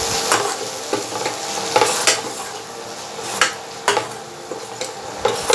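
Onion-tomato masala with ground spices sizzling in oil in a stainless steel kadai while a metal spatula stirs it, scraping and knocking against the pan several times.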